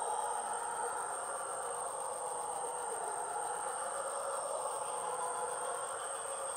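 Forest insect chorus of crickets and other insects: a steady high-pitched trill, a very high rapid pulsing at about six pulses a second, and a dense lower buzzing, all continuous and unchanging.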